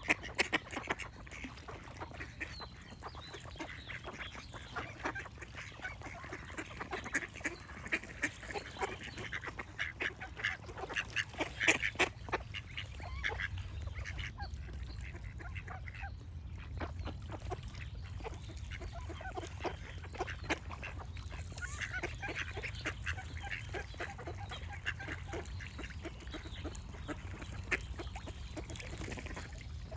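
Ducks quacking in a busy run of short, overlapping calls, loudest about twelve seconds in, with birdsong in the background and a steady low rumble underneath.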